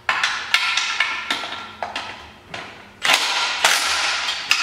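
Uneven metal knocks and clanks, roughly two a second, each ringing briefly, as engine mounting bolts are fitted into the steel frame of an ATV.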